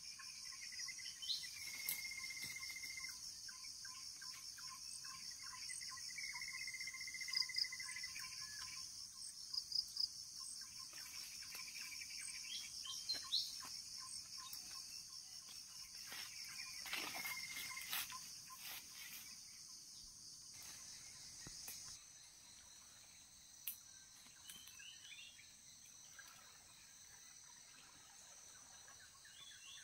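Insects trilling in a steady, high, finely pulsing chorus, with a few short whistled bird calls over it. About two-thirds of the way through, the insect chorus thins and grows quieter.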